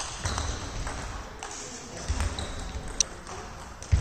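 Table tennis ball bouncing, heard as a few scattered light clicks with a sharper one about three seconds in, and a few low thuds.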